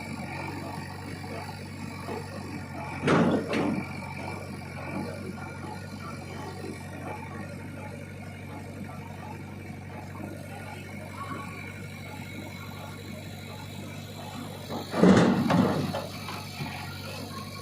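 JCB 3DX backhoe loader's diesel engine running steadily, with two brief loud clattering thuds, one about three seconds in and a heavier one near the end.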